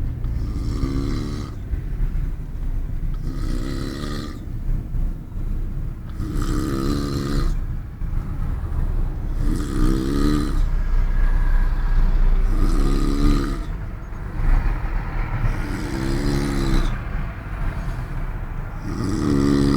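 A man snoring in a moving car's cabin, seven snores in a steady rhythm about every three seconds, over the car's low road rumble.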